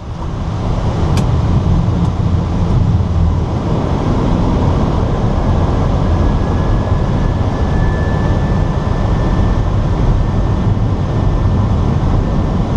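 Steady rushing noise of airflow and engines inside an Airbus A320 flight deck on final approach, with a faint thin steady tone for a few seconds about midway.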